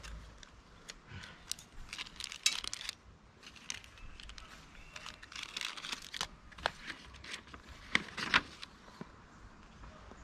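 Hands handling small plastic sprayer fittings and paper at a tabletop: scattered light clicks, taps and crinkles, with two sharper clicks about eight seconds in.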